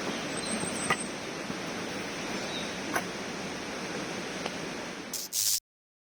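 Steady rushing of fast-flowing river water, with a few faint clicks. It cuts off abruptly near the end.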